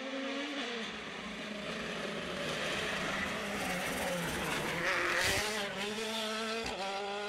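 Ford Fiesta RS WRC rally car's turbocharged four-cylinder engine revving hard, its pitch rising and falling through gear changes, with a short rush of hiss about five seconds in.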